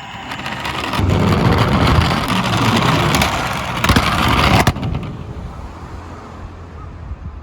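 Die-cast toy minicar rolling down a slope track, a rumbling roll that builds about a second in, stays loud with a sharp click near the middle, then fades away.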